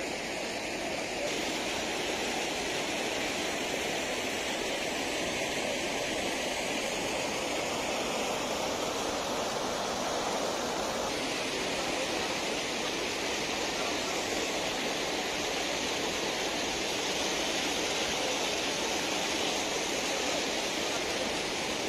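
Floodwater rushing and pouring over a weir, a steady even rush of water that shifts slightly in tone about a second in and again about eleven seconds in.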